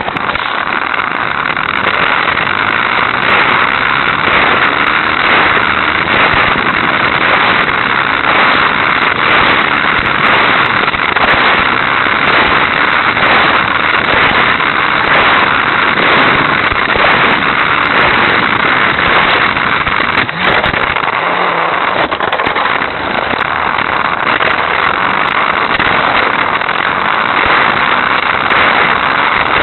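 Hot Wheels Sizzlers electric toy race car running at high revs around its plastic track, a steady motor noise with a constant fine clatter of wheels over the track, heard through a tiny keychain camera's microphone riding along.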